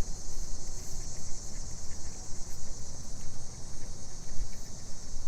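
Chorus of cicadas: a steady, unbroken high-pitched drone, with a low rumble underneath.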